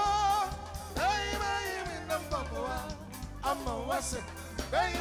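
Live band playing a groove: a drum kit with cymbal and drum hits over a bass line, with a wavering melody on top.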